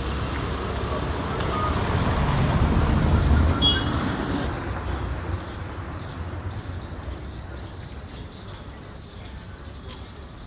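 A motor vehicle passing by. Its engine and tyre rumble grows louder, peaks about three seconds in, then fades away.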